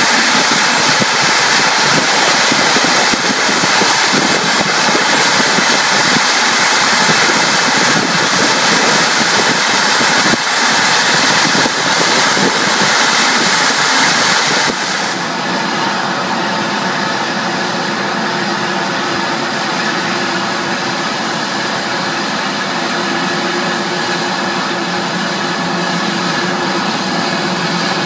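Steady rush of jet engine and airflow noise inside an airliner cabin as it taxis. After an abrupt cut about halfway through, the noise is a little quieter: a steady jet engine whine with several held tones over a softer rush.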